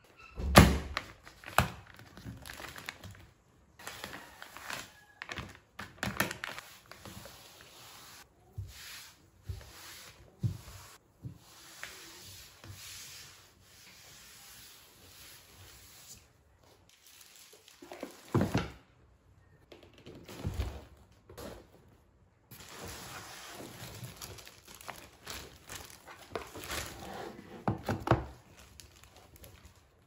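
A cloth rubbing over a wooden desktop in stretches of soft hissing strokes, broken by knocks and thumps on the desk; the loudest thump comes about half a second in.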